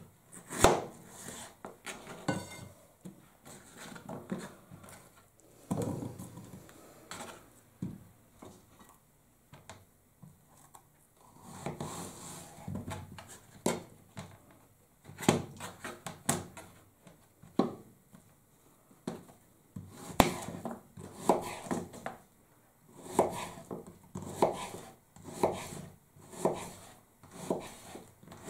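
Kitchen knife slicing peeled vegetables on a plastic cutting board: short, sharp knocks of the blade against the board, coming in irregular runs with short pauses between.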